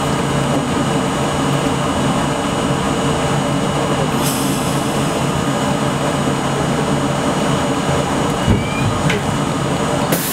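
Subway car running slowly into a terminal station and coming to a stop, heard from the front cab: a steady hum of motors and ventilation, with a short hiss about four seconds in, a low thump and a click near the end, and a sharp hiss of air just before it ends.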